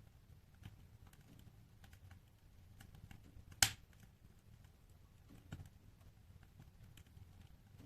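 Wood fire burning in a fireplace: scattered soft crackles over a low steady rumble, with one sharp loud pop about three and a half seconds in and a smaller pop about two seconds later.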